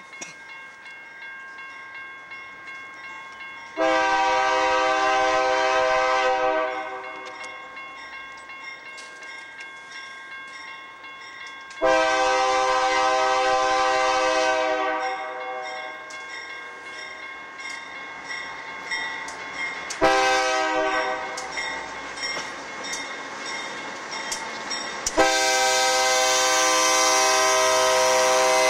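Freight locomotive air horn, on the lead unit BNSF 5602, a GE AC44CW, blowing the grade-crossing signal: two long blasts, one short, then a final long blast held as the locomotives draw alongside. Between the blasts, the train's rumble and steady wheel clicks.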